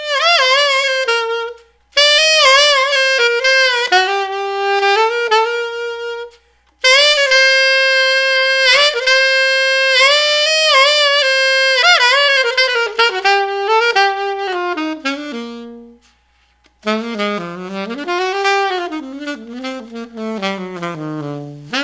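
Alto saxophone with a Seinsia Heritage TX mouthpiece, played dry with no reverb: melodic phrases with wavy vibrato and pitch bends, broken by three short pauses and ending in a slow descending line.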